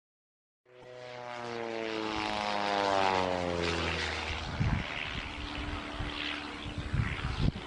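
Propeller airplane flying past, its engine and propeller note falling in pitch as it goes by. It starts about a second in, and irregular low thumps and rumble follow in the second half.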